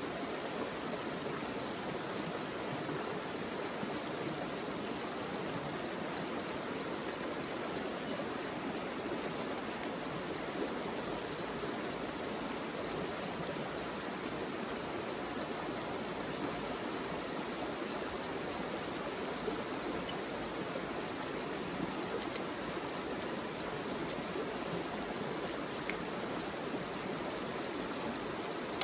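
River water rushing and burbling steadily over stones, an even, unbroken flow.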